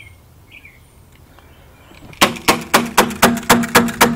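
CO2-powered HK USP airsoft pistol fired in quick succession, about eight sharp shots in two seconds, starting about halfway through.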